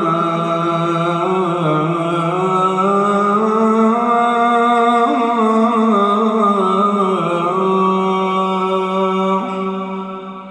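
A muezzin's solo voice holding the last syllable of 'hayya ʿala al-falah' in a long ornamented melisma, the pitch winding up and down, then fading away near the end.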